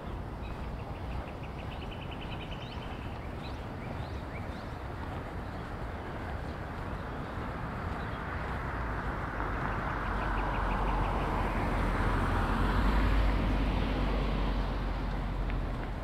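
A car passing along the street: its tyre and engine noise swells from about halfway through, is loudest near the end, then fades. Twice a short, fast, high chirping trill.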